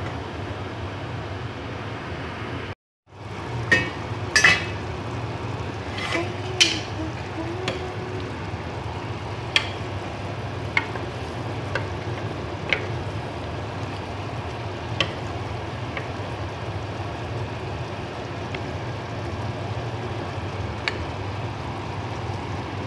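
Chicken and tomato stew cooking in a stainless steel pot, a steady hiss, with scattered sharp clinks of the lid and a spoon against the pot as it is stirred. The sound cuts out completely for a moment about three seconds in.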